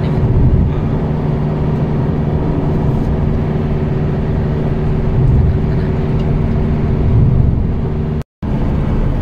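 Steady engine hum and tyre and road noise of a car cruising on a highway, heard from inside the cabin. The sound breaks off for a moment just after eight seconds, then resumes the same.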